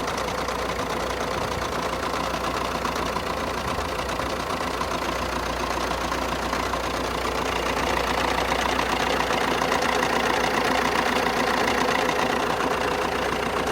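Fiat Tipo 1.6 MultiJet four-cylinder turbodiesel idling cold, with an extraneous noise that comes and goes and grows louder about eight seconds in. It shows only on a cold engine and stops when the clutch is pressed; the owner suspects the clutch release bearing.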